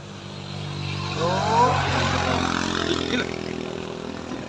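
Automatic scooter engine revving hard under load on a steep climb, straining. It swells and rises in pitch about a second in, then eases off.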